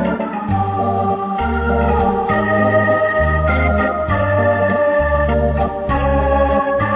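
Background music: held chords over a low bass part that changes about once a second.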